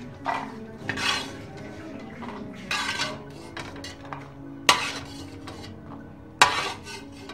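Perforated metal skimmer scraping and clinking against an aluminium pot as roasted cashews are scooped out, in a series of short scrapes. Two sharper metal clanks come about four and a half and six and a half seconds in.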